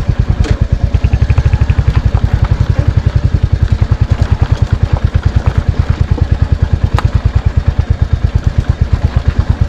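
Royal Enfield Hunter 350's single-cylinder engine running steadily under way, its exhaust thumping in a fast, even beat. A sharp knock stands out about seven seconds in.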